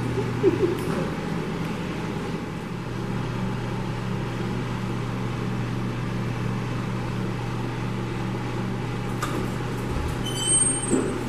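A steady low mechanical hum over a continuous hiss, with a few light clicks and a low thump near the end.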